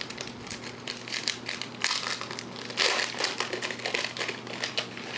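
Foil wrapper of a 2010 Panini Epix football card pack crinkling in the hands as it is opened, in two louder bursts about two and three seconds in.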